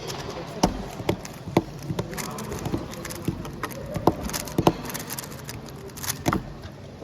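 Rubik's cube turned rapidly one-handed during a speedsolve: a quick, irregular patter of plastic clicks from the turning layers. Sharper knocks come about half a second in and again about six seconds in.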